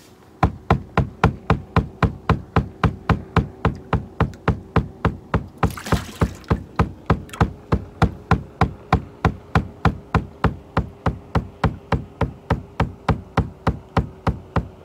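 Wooden stick beating steadily on a fishing boat's deck, about four knocks a second. The angler believes this thumping draws perch in under the boat.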